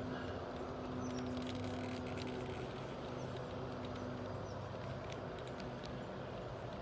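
G-scale double-stack well cars rolling past on garden-railway track, their wheels giving irregular clicks and clatter over the rails above a steady low hum.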